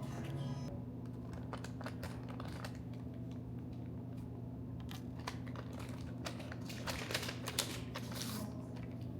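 Scattered light clicks and rustling, busiest around the middle and again near the end, over a steady low hum in a small room.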